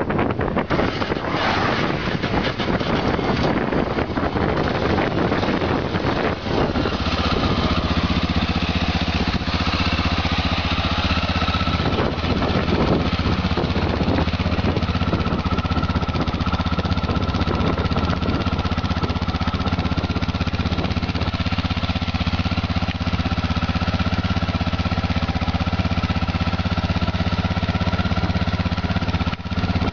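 Honda Dominator NX 650's single-cylinder engine running through its stock exhaust, rough and uneven for the first six or seven seconds, then settling into a steady idle.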